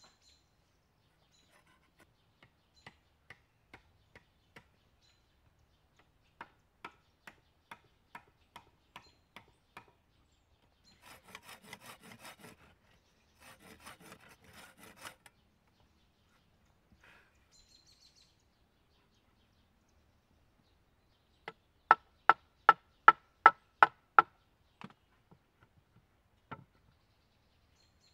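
A long blade cutting a notch into a green wooden pole: bouts of sharp knocks about three to four a second, the loudest run near the end. In the middle come two short spells of rapid rasping saw strokes.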